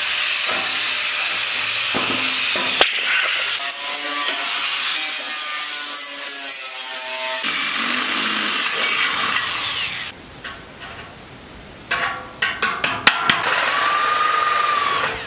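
Angle grinder grinding the cut steel of a 55-gallon drum, its pitch wavering as the disc bites, for about ten seconds. After a short lull come a few sharp clicks and then a steady whining power tool, a drill working the drum, near the end.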